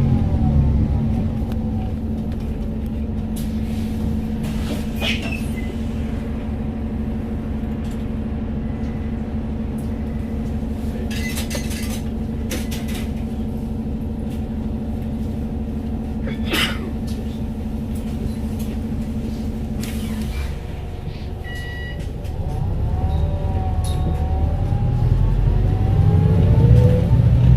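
Volvo B5TL double-decker bus's four-cylinder diesel engine idling with a steady hum and a few light clicks and knocks, then picking up about three-quarters of the way through as the bus pulls away, the pitch rising through the ZF automatic gearbox.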